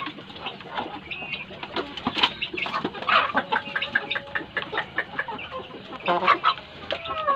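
A flock of Indonesian village chickens (ayam kampung) clucking: many short, scattered clucks and brief calls, louder around three seconds in and again near six seconds.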